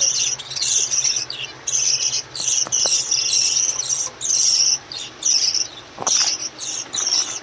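A flock of budgerigars chattering: rapid, overlapping high-pitched chirps in short bursts, one after another without a break.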